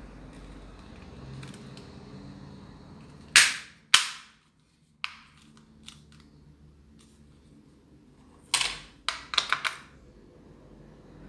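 Sharp plastic clicks and snaps of a TV remote control being handled: two about three and a half seconds in, a single one at five seconds, and a quick run of four or five near nine seconds in.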